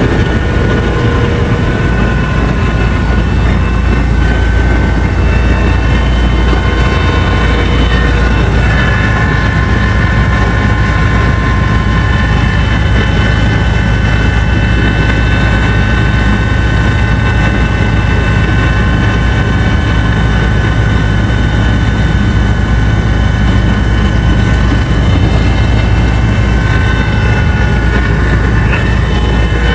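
Helicopter running steadily: a loud, constant drone with several steady whining tones above it.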